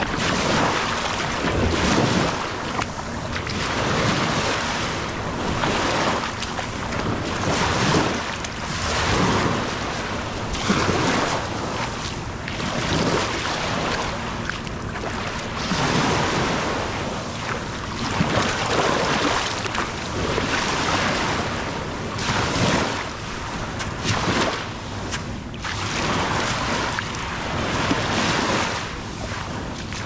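Small waves breaking and washing up over sand and pebbles right at the microphone, swelling and ebbing in surges every second or two, with wind buffeting the microphone.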